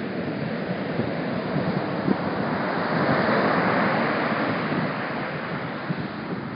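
Small waves breaking and washing up the beach, one wash swelling to its loudest about three to four seconds in and then easing off. A light wind buffets the microphone throughout.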